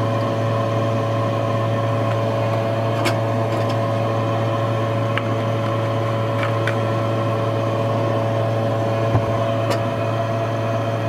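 Fume hood exhaust fan running with a steady, even hum. A few faint clicks are heard, and a soft knock near the end as the glass beaker on the hot plate is handled.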